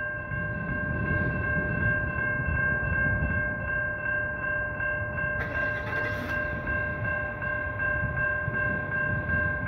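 Railroad crossing warning bell ringing steadily, the crossing signal still active after the train has cleared. There is a brief hiss about five and a half seconds in.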